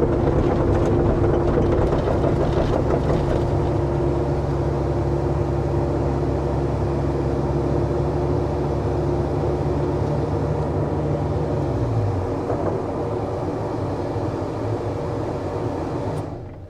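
Caterpillar excavator's diesel engine running steadily with a constant whine over it. About twelve seconds in the engine note falls as it throttles down, and the sound dies away near the end.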